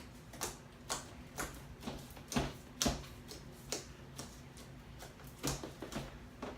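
Homemade glue slime being squeezed and pressed close to the microphone for ASMR. It gives irregular sharp pops and crackles, about two or three a second.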